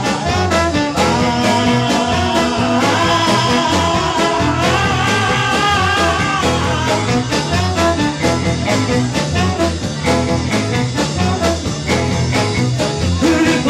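Live band music: a trumpet plays held, wavering melody notes over electric guitars, bass and a steady beat.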